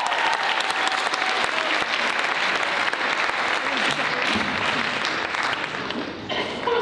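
Audience applauding, with a cheering whoop trailing off in the first second; the clapping slowly dies down toward the end.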